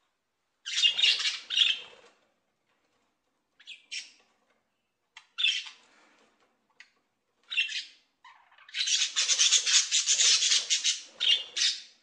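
Flock of sun conures screeching: a few short, harsh squawks spaced a second or two apart, then a near-continuous run of screeching over the last three seconds.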